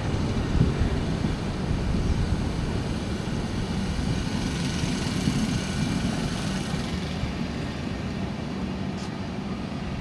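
Diesel generator in a Duronto Express luggage-brake-and-generator car running with a steady low mechanical drone.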